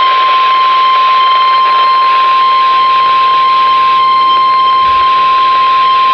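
NOAA Weather Radio 1050 Hz warning alarm tone: one steady, loud, unbroken tone over a hiss of radio static. It signals that a warning message is about to be broadcast.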